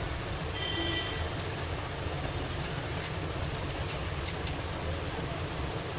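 Steady background noise with a low rumble and hiss, and a brief faint high whistle about a second in.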